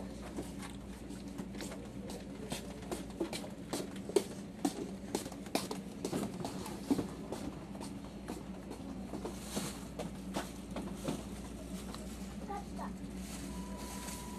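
Interior of a sleeper-train passenger coach under way: a steady low hum with many irregular light clicks and knocks, thickest in the middle. A steady high tone starts near the end.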